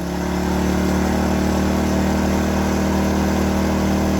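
Predator 2000 inverter generator's small single-cylinder four-stroke engine running. It speeds up over the first half-second and then holds a steady, higher speed, as it does when the economy throttle is switched off.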